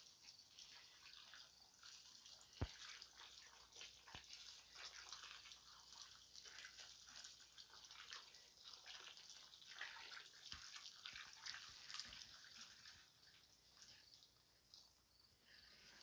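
Faint pattering and crackle of water poured from a galvanized watering can onto dry crushed charcoal and worm castings in a plastic tub, soaking in to activate the charcoal as biochar. One sharp knock about two and a half seconds in.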